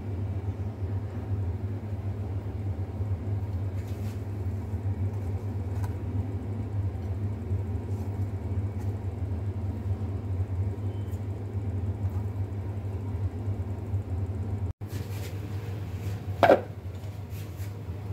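A steady low rumble, with one sharp metallic clank near the end as the perforated steel steamer insert is handled and set over a pot on the stove.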